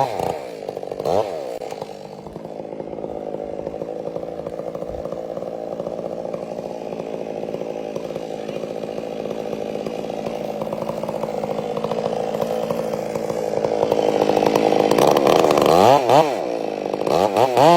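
Two-stroke chainsaw running steadily at high revs, then revving up and down several times near the end.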